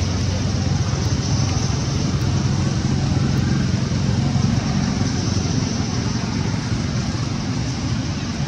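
Steady outdoor background noise: a continuous low rumble with hiss and no distinct events.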